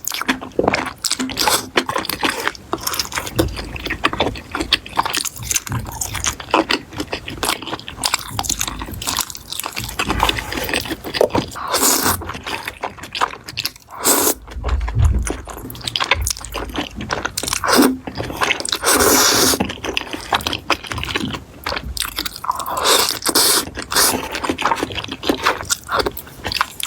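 Close-miked eating: crunchy chewing and bites, with scraping, as a dense run of crackling clicks and crunches and a few louder crunches.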